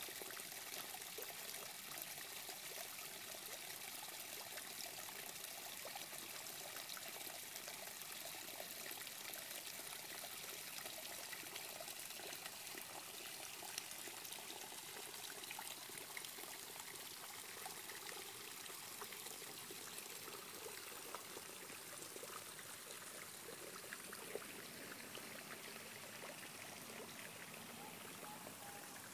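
Small waterfall trickling and pouring over a mossy rock into a pond, a steady light splashing that grows a little fainter near the end.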